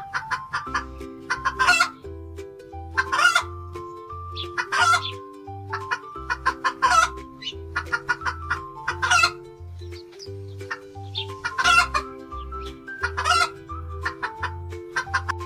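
Hen clucking in short repeated calls every second or two, over light background music with a steady bass line.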